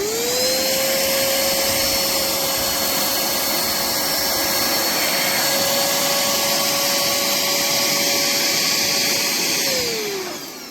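Pemacom cordless handheld vacuum cleaner switched on: its motor whine rises quickly to a steady pitch, with a high whistle and rushing air, and runs for about ten seconds. Near the end it is switched off and the motor winds down, its pitch falling.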